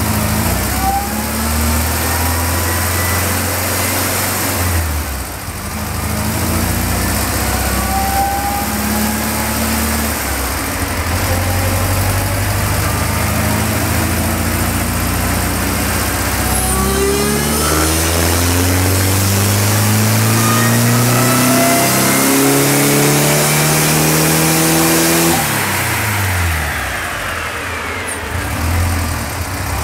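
Supercharged air-cooled VW 1600 flat-four running under load on a chassis dyno, its revs climbing in long sweeps. The note breaks off and starts climbing again about five seconds in and again a little past halfway. Near the end the revs fall away and settle to a lower, steady running.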